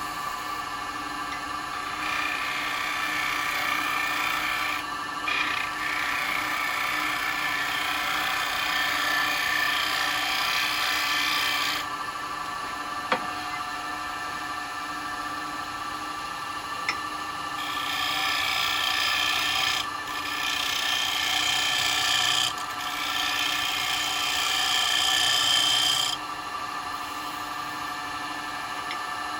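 Wood lathe running with a steady motor hum while a bowl gouge cuts the spinning bowl blank. The hiss of the cut comes in long passes with short breaks between them.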